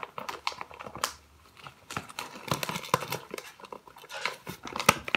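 Kraft paper bags crinkling and rustling as they are handled: a run of short, irregular crackles.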